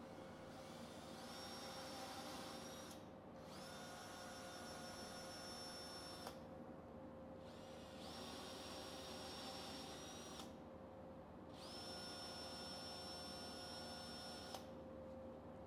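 Würth cordless drill driving a tap to cut threads into drilled holes in a metal bar, its motor whining in runs of two to three seconds. Each run spins up with a rising pitch and holds steady, and the drill stops about four times. A steady hum runs underneath.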